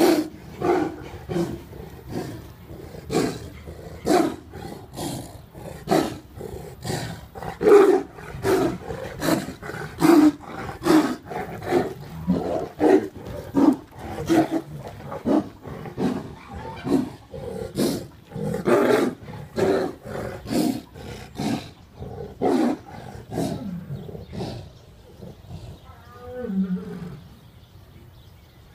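A Bengal tiger and a tiliger (tiger–lion hybrid) fighting, roaring and snarling in short loud bursts, one after another about every half second to a second. The bursts die down over the last few seconds.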